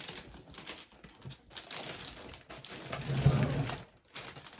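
Cellophane gift bag crinkling and crackling in irregular clicks as a bow is fastened onto it. A brief low hum about three seconds in.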